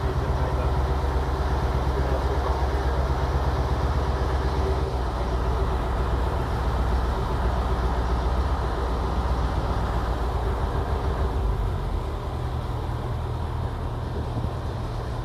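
Small ferry boat's engine running steadily underway, a deep drone with an even hiss of water and wind over it; it eases off slightly near the end.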